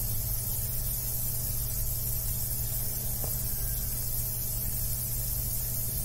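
Steady hiss and low electrical hum from an open microphone's recording chain, with one faint click about three seconds in.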